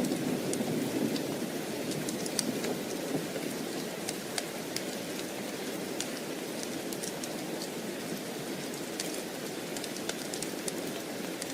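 Steady heavy rain falling, with scattered sharp ticks. A thunder rumble fades away over the first few seconds.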